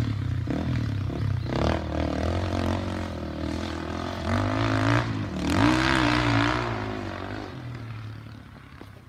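Enduro dirt bike engine revving as it rides round the sand track, its pitch dropping and climbing again with throttle and gear changes. The engine note fades away over the last few seconds as the bike moves off.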